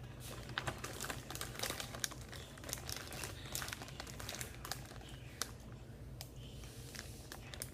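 Handling noise: crinkling and rustling with many scattered light clicks and taps.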